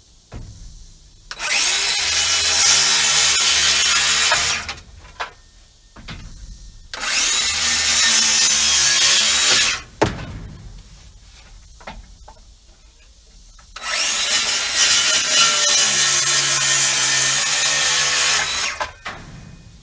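Cordless power tools working wooden roost boards: a circular saw cutting and a drill driving screws. They run in three bursts of three to five seconds each, with a sharp knock about ten seconds in.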